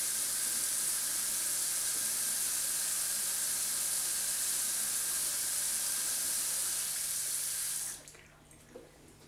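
Bathroom sink tap running into the basin in a steady hiss, shut off about eight seconds in.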